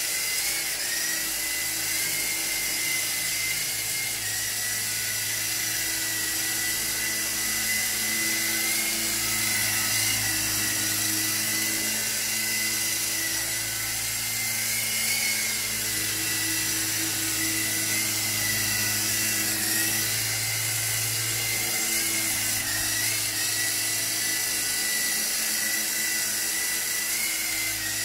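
Silverlit toy RC helicopter with coaxial rotors flying: a steady, high-pitched electric motor whine over a low rotor hum, the whine's pitch wavering slightly now and then.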